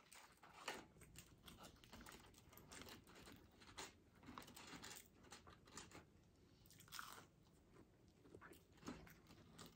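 Faint close-up chewing and biting of fast food (McDonald's fries and nuggets), with scattered small crunches and mouth clicks.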